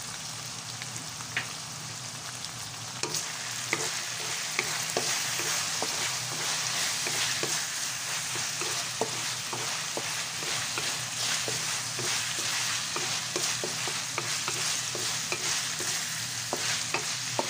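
Ground pork with tomato and onion sizzling in oil in a wok, with oyster sauce just added, while a spatula stirs and scrapes through it, giving frequent light clicks on the pan. The sizzle gets a little louder about three seconds in as the stirring starts.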